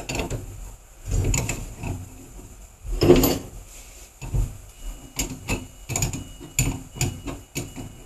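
Metal clicks and knocks from tightening the nut on a steel lacing bar at its galvanized bracket on a sectional tank. A loud knock about three seconds in, then an even run of about three clicks a second.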